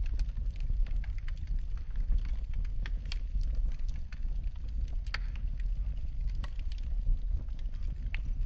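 Wood fire burning in a fireplace: a steady low rumble under frequent irregular crackles and sharp pops.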